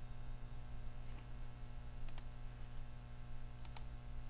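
Two faint, sharp double clicks at uneven spacing, the first about two seconds in and the second near the end, over a steady low hum.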